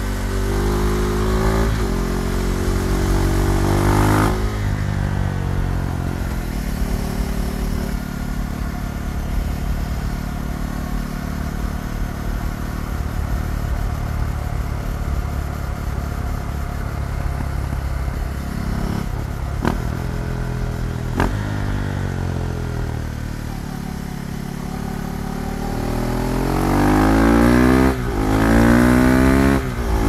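KTM Duke 390's single-cylinder engine under way: revs rise for the first few seconds and drop at a gear change, hold steady while cruising, then climb hard again near the end with a quick shift in the middle of the climb.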